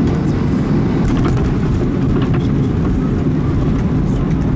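Boeing 737-800 touching down and rolling out on the runway, heard from inside the cabin: a steady, loud low rumble with light rattles about a second and two seconds in, as the ground spoilers deploy.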